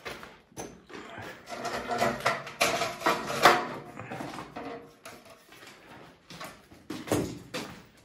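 Irregular knocks and clatter with some rustling, as of something being handled and moved about, loudest in a cluster a few seconds in and again near the end.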